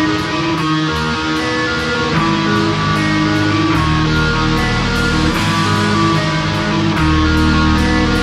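Rock band recording: guitars playing chords over a steady cymbal beat, with bass guitar and low end filling in about two seconds in.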